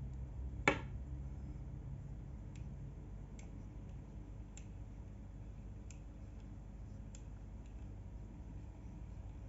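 Tsurinoya 1000 fishing reel knocking: one sharp click about a second in, then fainter knocks at gaps of roughly a second.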